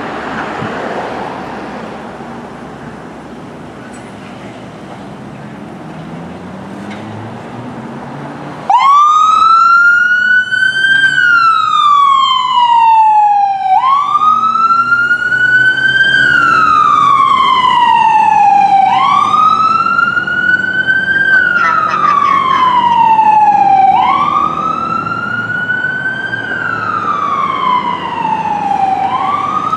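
Low vehicle noise, then about nine seconds in an ambulance siren cuts in abruptly in wail mode, each cycle rising quickly and falling slowly over about five seconds, repeating about four times as the ambulance pulls away on an emergency response.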